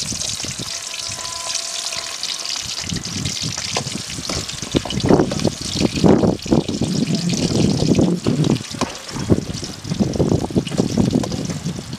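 Small onions frying in hot oil in a large metal pan, a steady sizzle. From about four seconds in, a perforated metal ladle stirs them, with irregular scraping strokes against the pan.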